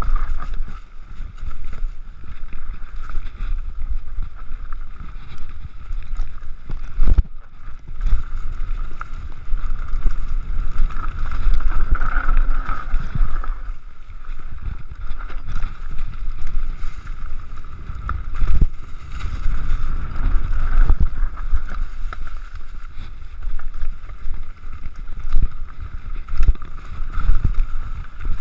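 Mountain bike descending a rocky dirt trail: wind buffeting the microphone with a low rumble while the tyres and frame rattle over the ground, over a steady high buzz. A few sharp knocks, about seven seconds in and again near nineteen seconds, where the bike hits bumps.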